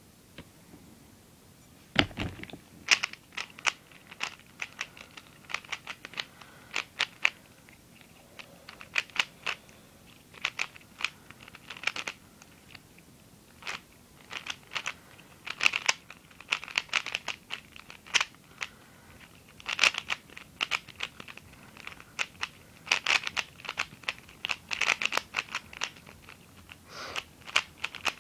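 A plastic 3x3 speedcube being turned fast during a timed solve: rapid clicking and clacking layer turns in bursts, with brief pauses between them. The turning starts about two seconds in.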